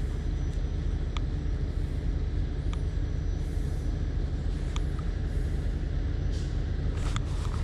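Steady low rumble of wind buffeting the camera microphone, with a few faint sharp ticks scattered through it.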